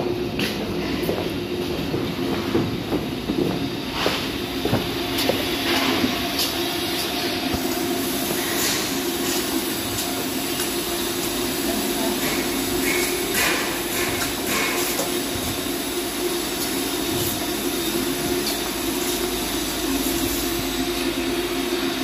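Steady mechanical hum of building-site machinery, with scattered knocks and clatter throughout and faint voices.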